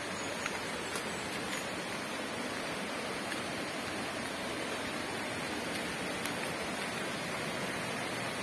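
Steady rush of flowing water from a hot-spring stream, with a few faint ticks early on and once more later.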